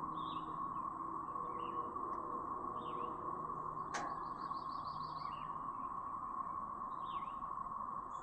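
Dense chorus of periodical cicadas: a steady, unbroken siren-like whine at one pitch. Several short bird chirps sound over it, and there is a sharp click about four seconds in.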